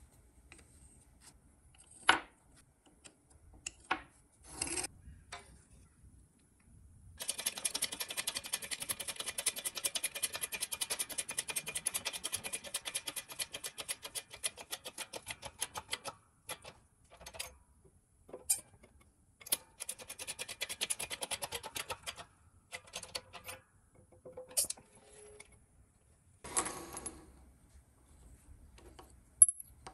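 Workshop handling of a metal plate and a plastic jig block: scattered sharp clicks and knocks, one loud one about two seconds in. About seven seconds in comes a long stretch of fast, even rasping clicks, and a shorter stretch follows later.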